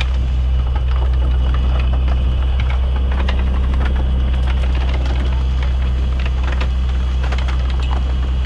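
A fishing boat's engine running steadily under way, a loud constant low drone, with scattered light knocks and clicks over it.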